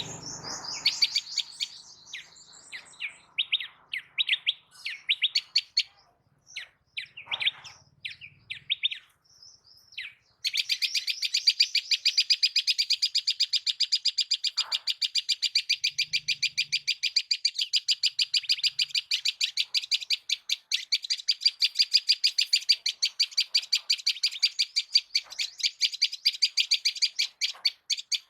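Small birds chirping high and sharp. Separate scattered chirps come first, then from about ten seconds in a fast, unbroken run of chirps, several a second.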